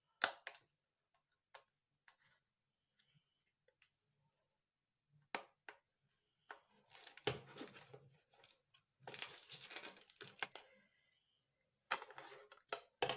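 A pry tool scraping and clicking along the seam of a Xiaomi Redmi Note 4's back cover as it is levered off, with scattered sharp clicks and longer stretches of scraping, busiest in the second half.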